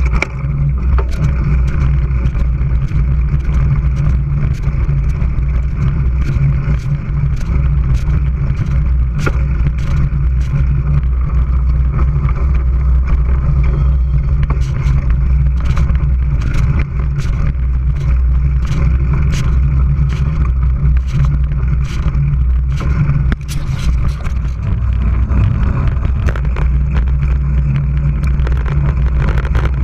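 Mountain bike being ridden on a trail, heard from a camera mounted on the bike: a loud steady low rumble of wind buffeting and rolling, with frequent sharp rattles and knocks as the bike jolts over the ground.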